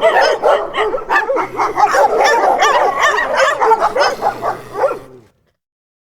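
Dogs yipping and barking in quick, overlapping succession, stopping abruptly about five seconds in.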